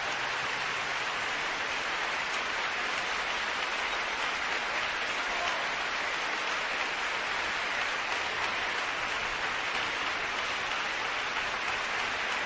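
Ballet audience applauding, a dense and steady clapping that holds at an even level.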